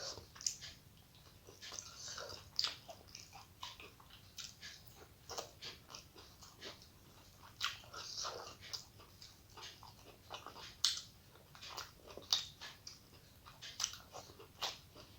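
A person chewing a rice-and-curry meal close to the microphone, with irregular wet smacks and clicks of the mouth, a few to several a second.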